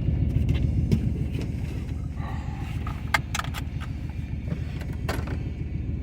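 Chevy Express van's engine running steadily, a low, even rumble. A few light clicks come about three seconds in.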